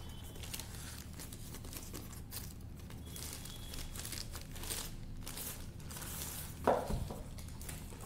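Clear plastic bag crinkling and rustling as the metal Silver Play Button plaque inside it is handled and lifted out of its box, with a single thump near the end.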